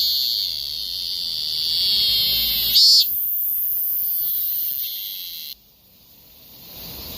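Korean robust cicada (Hyalessa fuscata) singing: a steady high-pitched buzz that swells to its loudest about three seconds in, then thins and stops abruptly about five and a half seconds in. A faint background hiss is left after it.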